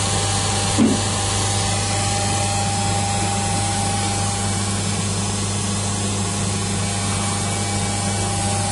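M-Triangel OCA laminating machine running its cycle: a steady hum with a thin whine above it, with one short click about a second in.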